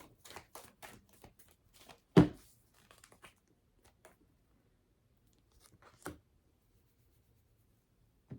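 Tarot cards being shuffled in quick papery strokes for about two seconds. A sharp slap follows, then a few more card sounds and a second, softer slap about six seconds in, as cards are drawn and put down.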